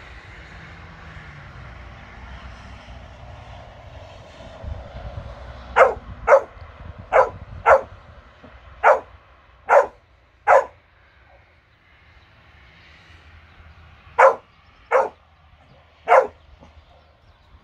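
Labrador barking at a rat: a quick run of seven sharp barks starting about six seconds in, then three more spaced barks a few seconds later.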